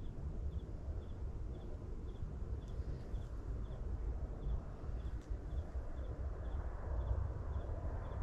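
Low, gusty rumble of wind on the microphone, with a small creature chirping steadily above it: short, high chirps about twice a second.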